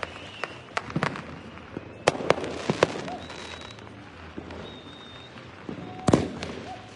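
Fireworks going off: irregular sharp bangs and cracks, with a cluster around two to three seconds in and a loud bang near the end, over a steady background rumble of more distant explosions. A couple of brief high whistles sound in the middle.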